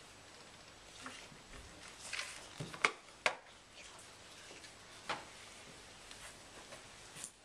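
Scattered light knocks and rustling from objects being handled at a table, with two sharp knocks in quick succession near the middle and another about two seconds later.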